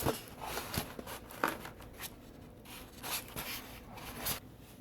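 Hands handling and positioning a small budget toy drone: scattered light clicks and brief rubbing sounds.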